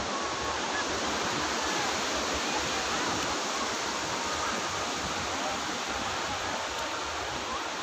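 Sea surf washing onto a sandy beach: a steady, even rushing hiss.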